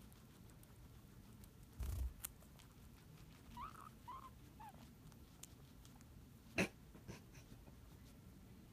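Guinea pigs chewing carrot, heard as faint scattered crunching clicks, with a soft thump about two seconds in. A few short, soft squeaks come around four seconds in, and one sharp click late on is the loudest sound.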